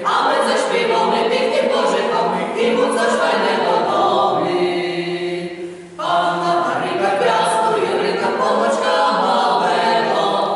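Folk choir of mostly women's voices singing a Polish Christmas carol a cappella. A little past halfway the singing dips briefly, then comes back abruptly on a new phrase.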